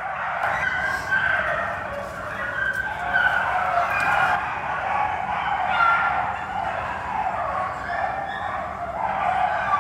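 A large group of kennelled beagles barking and howling at once, many voices overlapping in a continuous chorus with wavering pitch.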